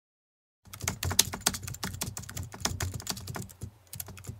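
Keyboard typing sound effect: a rapid, uneven run of key clicks that starts after a brief moment of silence.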